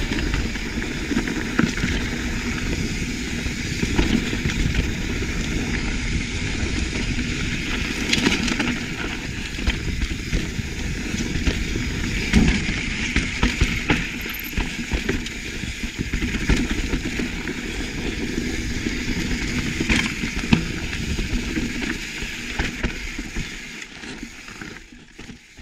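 Mountain bike riding over loose, rocky dirt singletrack: tyre crunch and the bike rattling and clattering over rocks and roots, over a steady rush of wind on a chest-mounted camera microphone. It fades out near the end.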